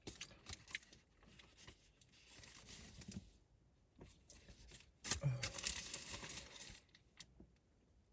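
Soft crinkling and rustling of fast-food packaging being handled, with scattered small clicks and taps; a busier stretch of rustling comes about five seconds in.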